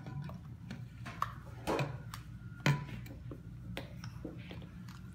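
A metal spoon knocking and scraping against a small cup, several irregular clinks, some with a brief ring, over a low steady hum.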